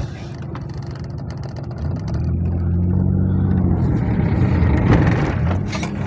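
A car engine running steadily as the vehicle drives, growing clearly louder and fuller about two seconds in.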